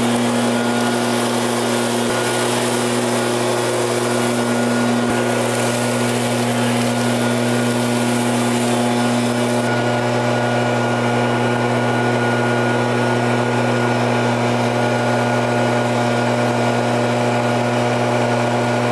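Backpack two-stroke engine leaf blower running steadily at full throttle: a constant droning engine note over the rush of blown air. The highest part of the air hiss drops away about halfway through.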